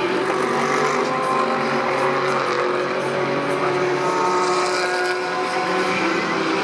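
GT3 race car engines running hard on the circuit, several cars heard at once with their engine notes overlapping and slowly shifting in pitch.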